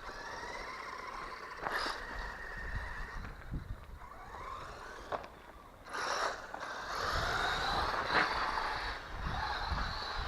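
Electric motor and drivetrain of a 1/12-scale hobby-grade 4WD RC car whining, the pitch rising and falling as the throttle is worked. There are several sharp knocks along the way.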